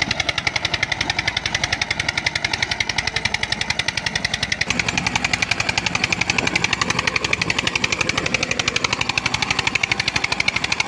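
Tractor diesel engines of a Sonalika 50 and an Eicher 242 pulling hard under heavy load, with a rapid, even thudding exhaust beat.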